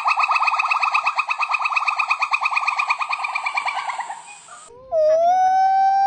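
A monkey calling: a fast, even trill of about ten pulses a second that fades out about four seconds in, then a long whistled call held on one pitch that sweeps upward at its end.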